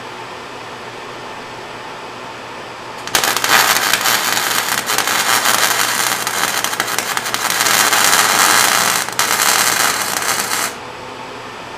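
Lincoln 140 MIG welder laying a bead on zinc-coated steel, run at a turned-down setting: the arc starts about three seconds in, crackles steadily for about seven seconds with a brief break near the end, then stops abruptly. A fan runs steadily underneath.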